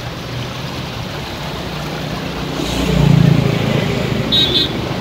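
Car engines running as cars wade slowly through muddy floodwater covering the road, with the wash of water around the wheels. The engine noise swells about three seconds in, and a short high chirp sounds near the end.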